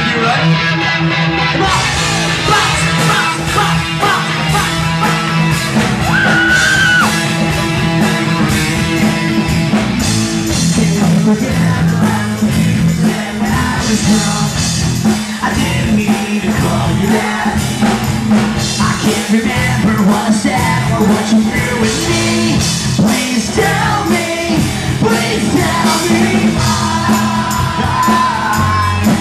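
Live rock band playing loudly: electric guitars, bass and drums, with a singer singing and shouting over them.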